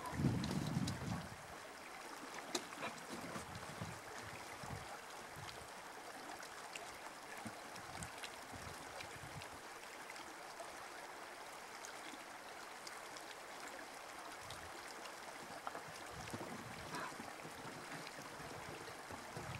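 Shallow river flowing: a faint, steady rush of moving water with small ticks of ripples. A gust of wind rumbles on the microphone in the first second.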